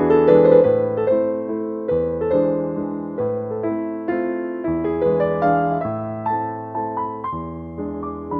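Slow, gentle piano music: notes and chords struck every half second or so, each ringing and fading before the next.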